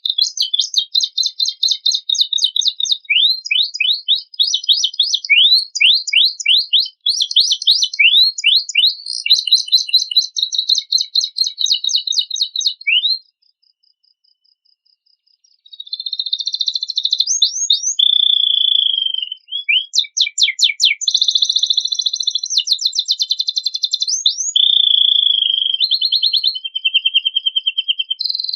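Canary singing long, fast trills and runs of quick rising sweeps, breaking off for about two seconds midway, then resuming with lower buzzing rolls and more rapid trills.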